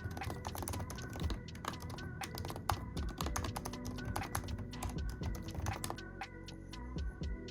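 Rapid typing on a computer keyboard, many quick key clicks that thin out about six seconds in, over background music.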